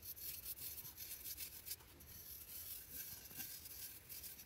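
Round makeup brush rubbing contour onto a foam mannequin head: faint scratchy brush strokes in quick, irregular succession.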